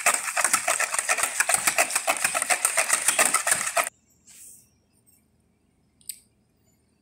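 Wire whisk beating a yeast-and-water mixture in a plastic bowl, in rapid, even strokes that stop abruptly about four seconds in. A single light click follows near the end.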